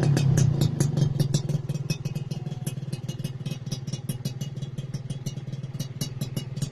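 Suzuki Satria R two-stroke single idling through an aftermarket AHM Malaysia racing exhaust, settling down over the first couple of seconds after a rev to a steady low idle note with rapid, irregular crackling from the exhaust.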